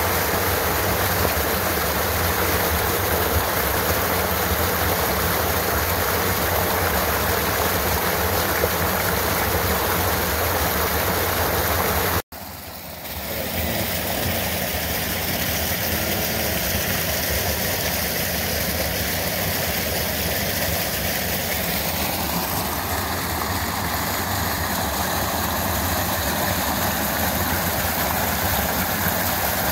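Small mountain-creek waterfall pouring into a pool, a steady rush of white water close by. It cuts out for a moment about twelve seconds in and then resumes.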